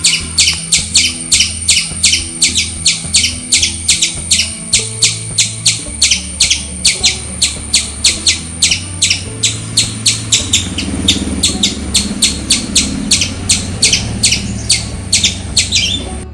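Squirrel's alarm call: a long, even run of sharp, high chirps, about four a second, over soft background music.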